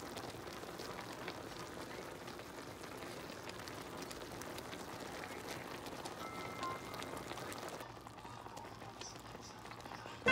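Napa cabbage, mushroom and beef hot pot bubbling in its broth in an open pan: a steady, quiet crackling, hissing simmer. The high hiss thins out about eight seconds in.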